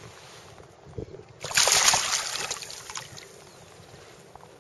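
Water splashing: one burst about a second and a half in that fades out over about a second, with a faint knock just before it.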